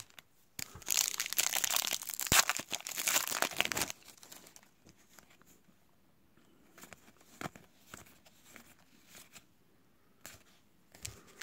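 Foil trading-card pack wrappers crinkling and rustling for about three seconds, then quieter soft clicks and slides of a stack of cards being flipped through by hand.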